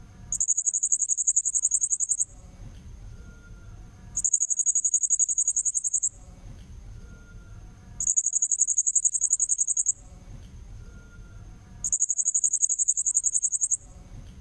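Blue-crowned hanging parrot (serindit) call from a looped lure recording. It is a very high, rapidly pulsed trill lasting about two seconds, repeated four times at even intervals of about four seconds.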